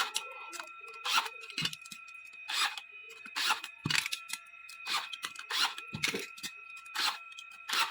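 A series of short scraping, rasping strokes, roughly one every half second to a second, over a faint steady high tone.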